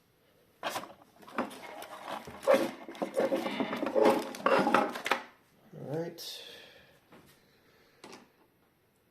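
Small screwdriver clicking and scraping against the motherboard's M.2 cover screw, with a short vocal sound about six seconds in.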